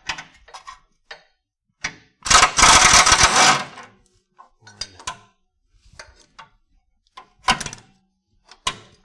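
Air impact wrench hammering in a rapid burst of a little over a second, loosening a 12 mm anti-roll bar bolt. Short metallic clinks and knocks of tools and sockets come before and after it.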